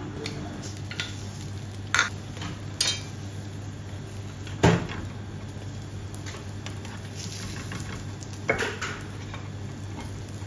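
Cookware clatter: a glass pan lid and a spatula knocking against a small frying pan as pancakes are uncovered and turned, several sharp clinks and knocks, the loudest about halfway through, over a steady low hum.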